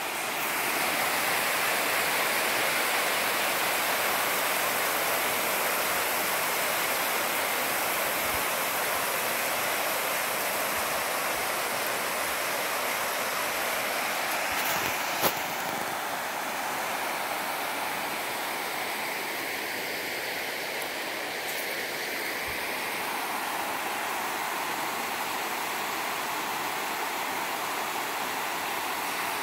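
Water rushing steadily as it spills through the sluice openings and over a low concrete weir of an irrigation canal structure. A single brief click about halfway through.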